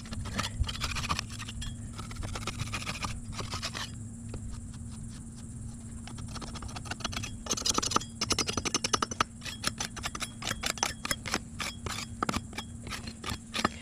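Hands scraping and rubbing over a boat deck around the mast step, feeling for soft spots, with a quick run of scratchy clicks in the second half.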